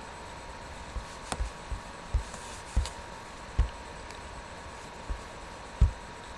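A handful of soft, irregularly spaced low thumps, a few with a sharp click, over a steady hiss and a faint steady high tone; the loudest thump comes near the end.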